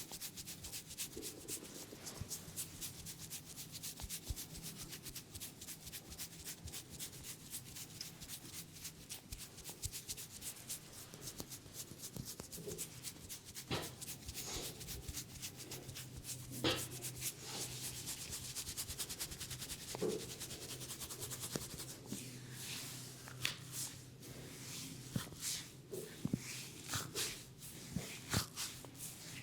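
Hands rubbing and scrubbing through hair and over the scalp during a head massage. The first half is a fast, dense run of scratchy strokes; the second half has slower, separate rubs and a few sharp clicks.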